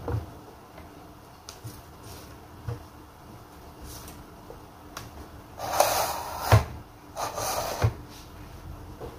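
Kitchen handling sounds at an electric wafer maker: scattered light knocks and clicks, then two short rustling, scraping bursts about six and seven and a half seconds in, each ending in a knock, as crisp wafers are moved off the plate and onto the tray.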